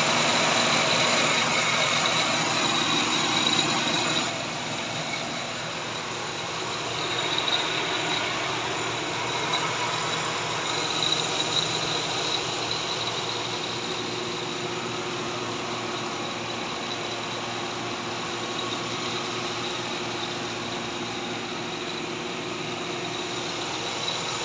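GMC Sierra's 6.2 L V8 idling steadily on freshly installed spark plugs, heard close at the front of the engine by the belt and alternator, with a thin high whine over it. A little louder for the first four seconds, then even.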